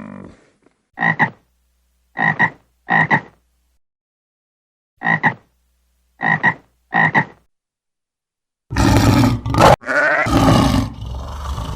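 An animal giving six short, pitched two-part calls, spaced about a second apart, then from about nine seconds a loud, rough, drawn-out animal call.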